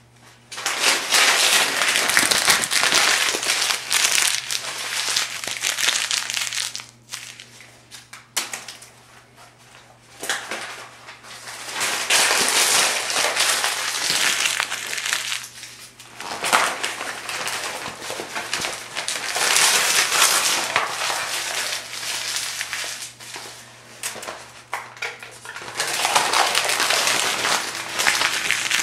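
Thin phone book pages being crumpled by hand into balls, in several long bouts of crackly crinkling with short pauses between.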